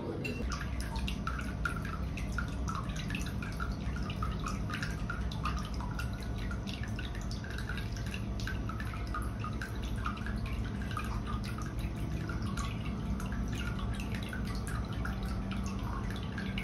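Hot-spring water trickling and dripping into an open-air bath tub, many small irregular splashes over a steady low hum.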